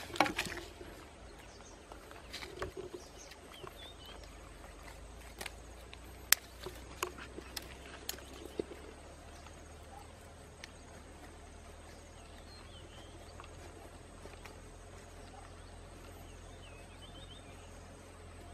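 Hands and a wooden stick digging and scraping in dry, hard soil, with scattered knocks and scrapes in the first half and quieter work after. A few faint high chirps now and then.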